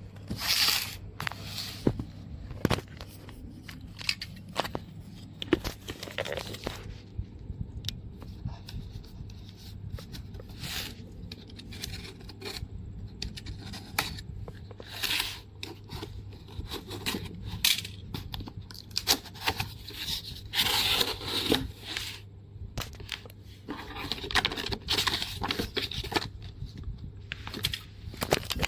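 Handling noises: repeated tearing, scraping and rustling with short clicks and knocks, as of packaging being opened and handled, over a steady low hum.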